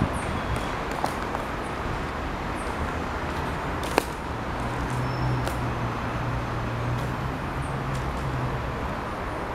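Steady rumble of city traffic, with a low engine hum that comes in about halfway and stops near the end, and one sharp click about four seconds in.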